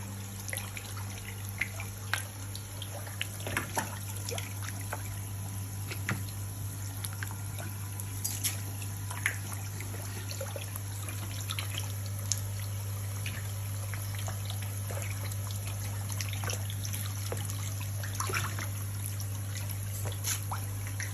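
Water trickling and dripping into a fish-rearing tank or pond, with scattered small splashes over a steady low hum.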